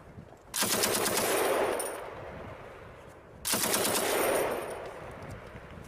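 Machine gun firing two short bursts of rapid shots, each about a second long and about three seconds apart, with a fading echo after each.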